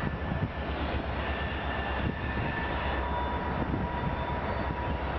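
Steady wind noise rushing and rumbling over the microphone of a high-altitude balloon payload's camera as it climbs.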